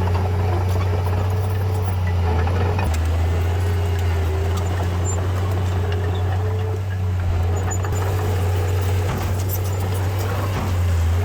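Diesel engine of heavy earthmoving machinery running steadily under load, a deep constant hum with a faint wavering whine above it and scattered light clanks.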